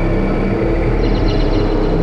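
Experimental electronic drone-noise music: a dense low rumble with held, slowly shifting tones, and a fluttering high texture that comes in about halfway through.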